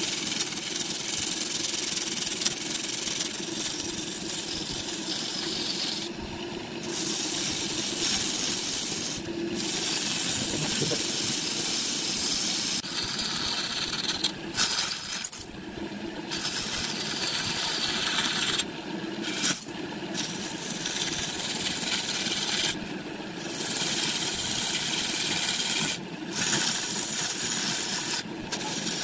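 A tool working a piece of wood spinning on a lathe: a continuous scraping hiss over a steady hum, broken by short breaks every few seconds.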